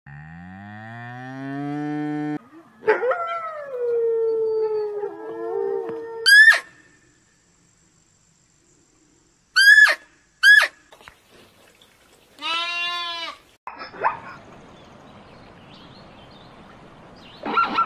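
A series of different animal calls, one after another: a low call rising in pitch, a longer wavering call that falls, three short high chirps, another short pitched call, and a brief call near the end over a background hiss.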